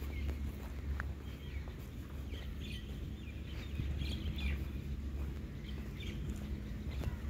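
Birds chirping in many short, scattered calls over a steady low rumble.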